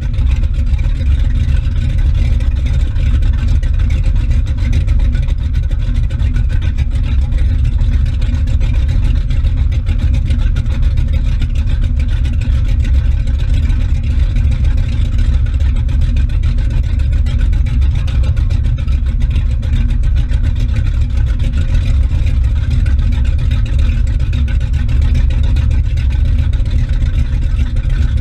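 Motorboat under way at a steady speed: an even, low engine rumble mixed with the rush of churning wake water, the engine running smoothly.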